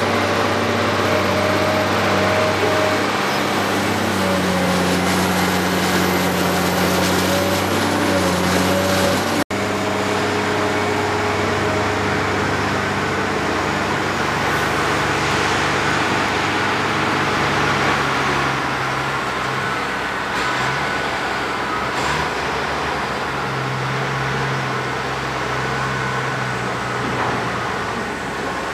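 Heavy diesel engines running steadily: a Cat 385C LME hydraulic excavator working under load, with a Cat 775 off-highway dump truck beside it. A high whine rises and falls in the first third. The sound cuts out for an instant about a third of the way in.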